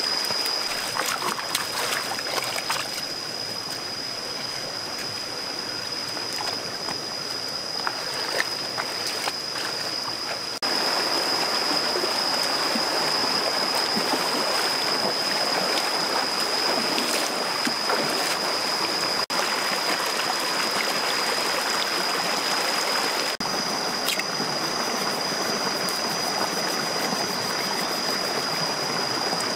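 Shallow rocky stream rushing and burbling, with occasional splashes of wading feet; the water grows louder about ten seconds in. A steady high-pitched whine sits over it throughout.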